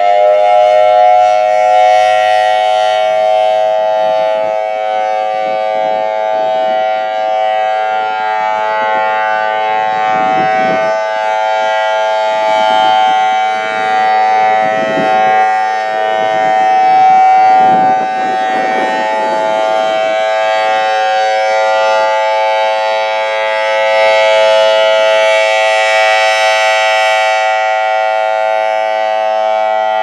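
ACA Alertronic 6000 electronic siren sounding its steady Alert tone, a held chord of several pitches that settles right at the start and then stays level. The sound swells and fades as the rotating horn turns toward and away.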